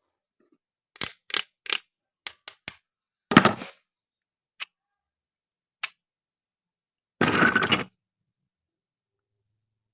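Hard toy play-food pieces being handled: a quick run of light clicks and taps, a louder clatter, two single clicks, then a longer rattling clatter near the end.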